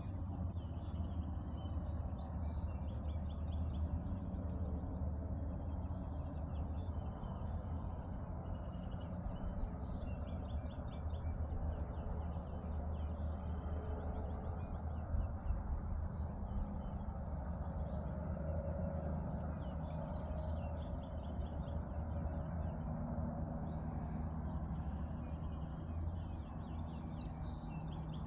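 Songbirds singing at dawn: many chirps and short, rapid high trills repeated every several seconds, over a steady low rumble.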